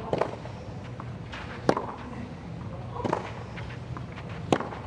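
Tennis ball struck back and forth in a baseline rally: four sharp racquet hits, about a second and a half apart, over a steady low background hum.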